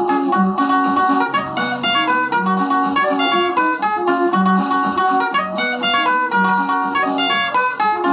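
Stratocaster-style electric guitar played in a clean tone: quick single-note picked runs over low bass notes that recur about every two seconds.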